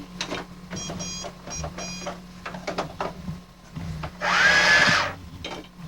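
Toy cash register ringing up items: keys clicking and several short high electronic beeps, then a louder electronic buzz lasting just under a second, about four seconds in.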